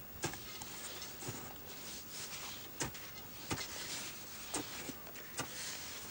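Climbers' boots crunching in snow, an uneven step every half second to a second, over a steady faint hiss.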